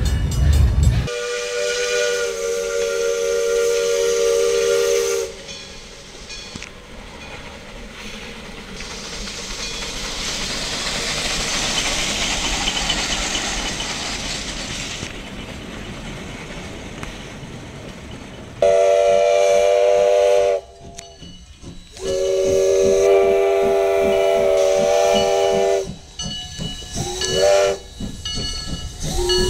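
Steam locomotive whistles sounding several notes at once: one blast of about four seconds near the start, then a long stretch of steam hissing that swells and fades, then four more blasts in the last ten seconds, one of them rising in pitch as it opens.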